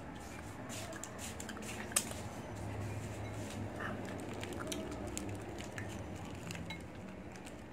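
Close-up eating sounds: chocolate being chewed and a plastic candy wrapper crinkling, with scattered small clicks and one sharper click about two seconds in, over a low steady hum.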